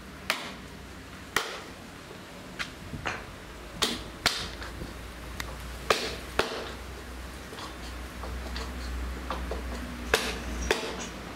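Hammer blows on wood, about a dozen sharp knocks at an uneven pace, some close together in pairs, over a steady low rumble.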